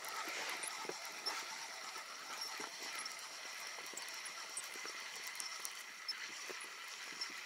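Small waves lapping and slapping against the hull of a boat, giving light, irregular knocks over a steady wash of water and wind.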